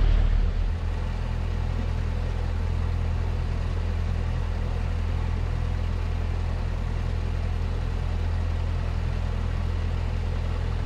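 A narrowboat's inboard diesel engine running steadily while cruising, a low even hum.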